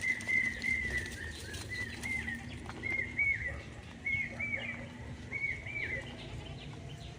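A bird calling: short clear whistled notes in groups of two or three, repeated about once a second, over a faint steady low hum.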